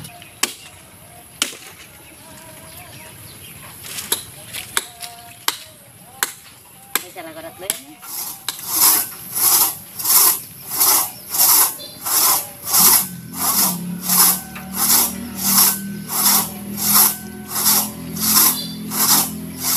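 Hand saw cutting through mango wood: scattered knocks at first, then from about eight seconds in a steady rhythm of rasping saw strokes, a little more than one a second. A low steady hum joins about halfway through.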